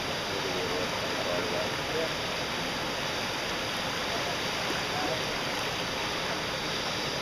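Whitewater river rapids rushing, a steady, even noise with no breaks.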